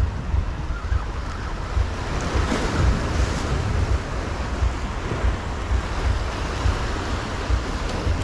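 Sea surf washing over a rocky shoreline revetment, with a wave surging up a little over two seconds in. Wind buffets the microphone in low rumbling gusts.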